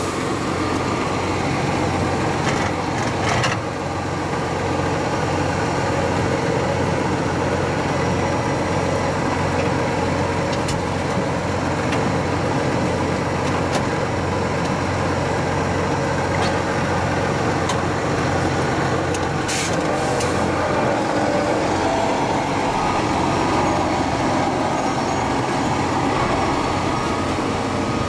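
Jenz HEM 561 Z wood chipper and the tractor driving it, running steadily and heard from inside the tractor cab, with a loud, even machine drone. Brief hissing bursts come about three seconds in and again near twenty seconds.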